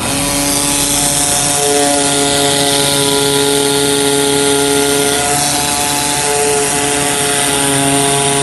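Digital flatbed cutting machine running as its knife head cuts foil-faced felt insulation: a loud, steady mechanical hum and hiss with several whining tones that shift and change every second or two as the head moves.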